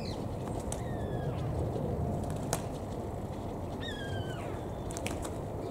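Steady low outdoor rumble with a few sharp slaps, from wood pigeons striking each other with their wings as they fight, and three short falling bird calls.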